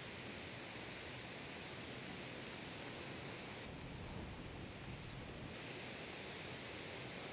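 Soft, steady rushing hiss of a huge flock of starlings in flight, with faint high chirps over it; the tone shifts slightly a couple of times.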